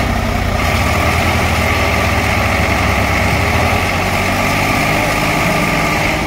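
Diesel tractor engines running under heavy load as one tractor pulls another, with its loaded trailer, free of a field where it is stuck. A steady engine drone whose low note shifts a little past halfway.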